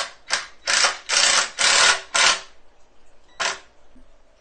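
Cordless impact driver hammering wood screws into pine two-by-fours in a series of short rattling bursts, most of them in the first two and a half seconds and one more about three and a half seconds in.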